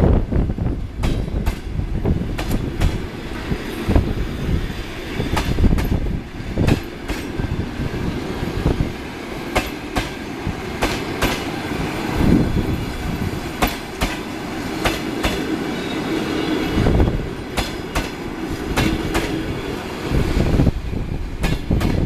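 Coaches of a departing passenger train rolling past, the wheels clicking and knocking irregularly over rail joints and points under a steady low rumble. A faint wheel squeal rises about three quarters of the way through.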